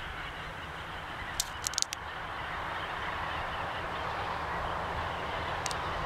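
A large mob of corellas screeching all at once, heard from afar as one dense, continuous din of calls that grows a little louder after about two seconds. A few sharp clicks come about one and a half seconds in and again near the end.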